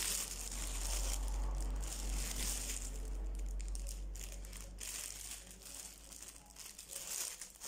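Clear plastic bags of diamond-painting drills crinkling as they are handled, louder for the first few seconds and fainter after.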